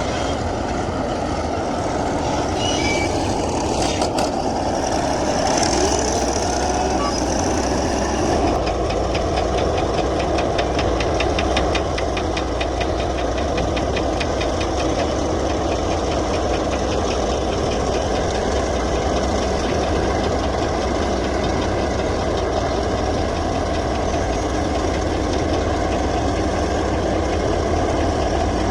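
Komatsu D155A bulldozer's diesel engine running steadily. A fast, even rattle joins about a third of the way in.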